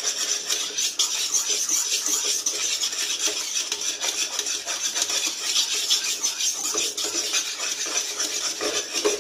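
Spatula scraping fast and continuously around a non-stick pan, stirring milk reduced to a thick, drying mass for kalakand.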